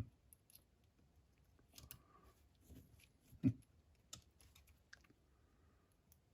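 Faint, scattered clicks and small taps of small screws and metal parts being handled as the motor's mounting screws are started, with one louder knock about three and a half seconds in.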